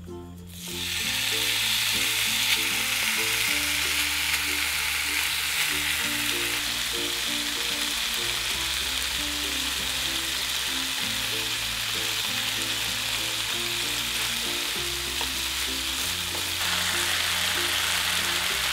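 Gochujang-marinated pork belly sizzling in hot oil in a non-stick frying pan. The sizzle starts suddenly about a second in as the meat goes into the oil, holds steady, and grows a little louder near the end.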